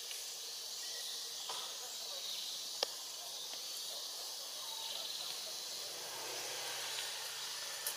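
Forest ambience: a steady high hiss of insects, with one sharp click nearly three seconds in.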